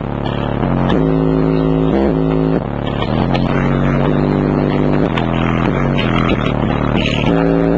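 Loud, bass-heavy music played through a car stereo, with a JL Audio 10W6 subwoofer in a ported enclosure driving a continuous deep bass inside the cabin. Held notes change every half second to a second, and the music drops a little in loudness about two and a half seconds in.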